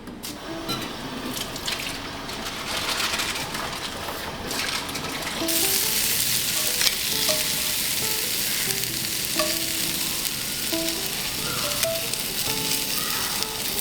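Food sizzling in oil in a frying pan, getting markedly louder about five seconds in, with some stirring.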